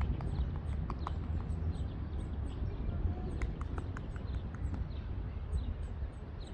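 Outdoor background: small birds chirping in short, high, repeated notes over a steady low rumble.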